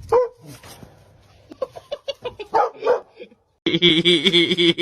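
A dog barking in short, separate barks. About three and a half seconds in, the sound cuts to a different, sustained pitched sound that wavers slightly.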